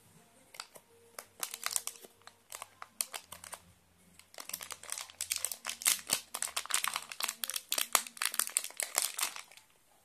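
Thin plastic packaging bag crinkling as it is handled and opened by hand. Scattered crackles at first, then a dense run of crinkling from about four seconds in that stops just before the end.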